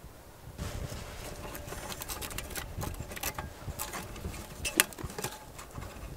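Small fire of dead sage twigs burning in a folding wood stove, crackling with irregular sharp pops, one louder pop near the end.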